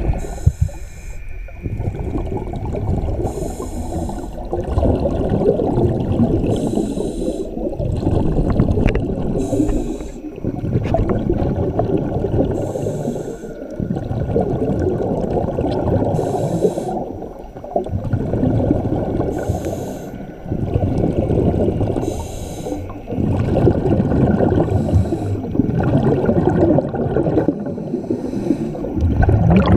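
Scuba breathing through a regulator, heard underwater: a short hiss on each inhale, then a long rush of exhaled bubbles, repeating every few seconds.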